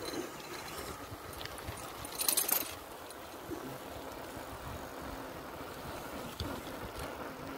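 Wind and riding noise on a phone microphone while cycling, with a brief crackling burst about two seconds in.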